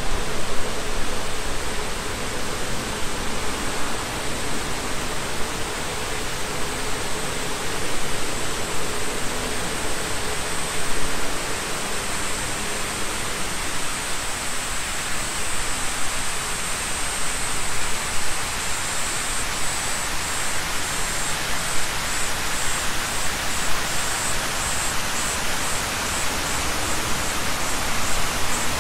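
Steady rushing wash of falling water from a large plaza fountain. From about two-thirds in, a faint high pulsing chirp joins it at roughly two pulses a second.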